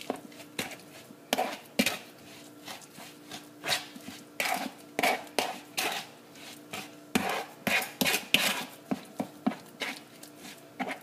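A metal spoon stirring a thick mixture of mashed banana and oatmeal in a plastic mixing bowl: irregular scrapes and knocks of the spoon against the bowl, coming in quick clusters.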